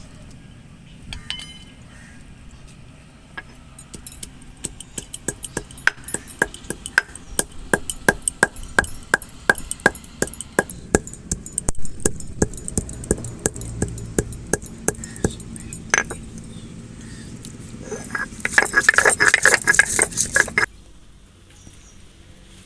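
Whole garam masala spices being crushed on a stone grinding slab: a run of sharp stone-on-stone knocks, about three or four a second. Near the end comes a couple of seconds of rough grinding that stops suddenly.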